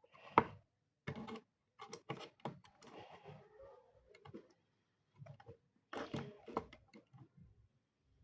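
Wall switches of a three-way light circuit being flipped back and forth while the circuit is tested: a series of sharp clicks and knocks. The loudest comes about half a second in, with clusters of clicks later on.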